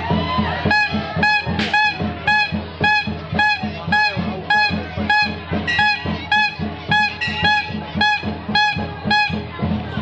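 Festival music: drums beating steadily under a wind instrument that sounds one short high note about twice a second, from about a second in until near the end.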